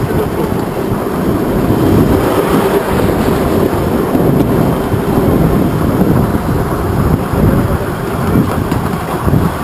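Steady rumble and rattle of a ride-on scale model tram running along its track, its wheels on the rails.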